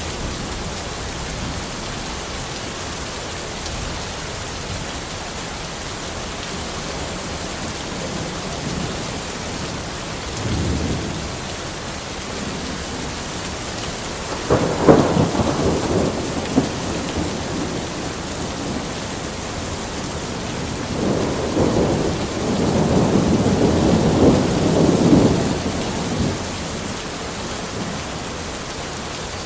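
Steady rain falling in a forest, with rolls of thunder: a short one about ten seconds in, a louder crack-and-rumble around fifteen seconds, and a longer rolling rumble after twenty seconds.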